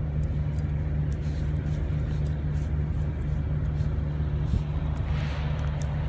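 Semi-truck diesel engine running with a steady low drone, heard from inside the cab, with a brief hiss about five seconds in.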